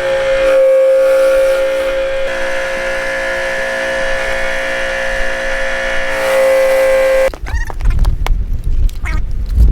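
Simpson 2300 PSI electric pressure washer running with a steady, high whine, cutting off abruptly about seven seconds in. After that comes irregular rumbling with a few sharp knocks.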